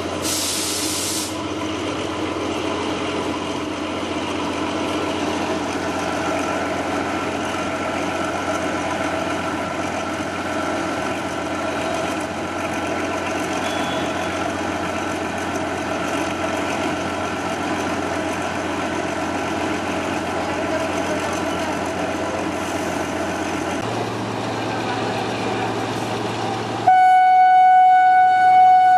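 ZDM3 narrow-gauge diesel locomotive engine running steadily, with a short hiss at the start. Near the end its horn sounds one long, loud, steady blast.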